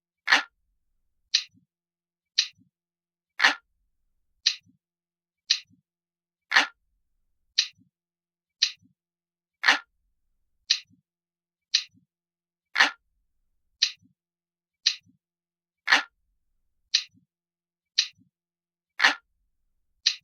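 Clock ticking steadily about once a second, with every third tick louder and fuller than the two between.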